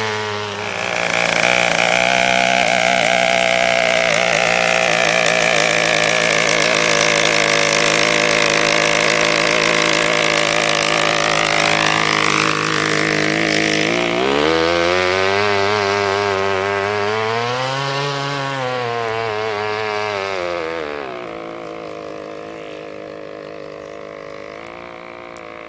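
53 cc two-stroke chainsaw engine driving a go-kart, held at high revs for about thirteen seconds, then dropping, rising and falling again, and settling lower while getting quieter near the end.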